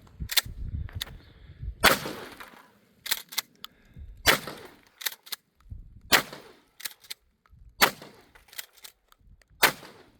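Shotgun fired in quick succession at a printer: five loud blasts about two seconds apart, each with a ringing tail, and lighter sharp clicks between the shots.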